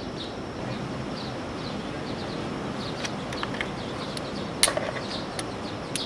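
Small birds chirping in short, repeated high notes over a steady rush of ocean surf, with a few sharp clicks, the loudest about three-quarters of the way in.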